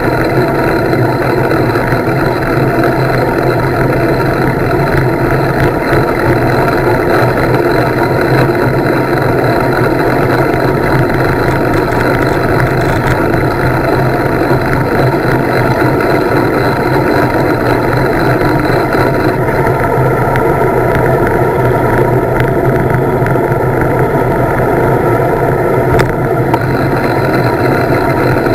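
Wind rushing over the camera's microphone during a fast road-bike descent, mixed with the hum of the tyres on the asphalt; a steady, loud rush with one light tick near the end.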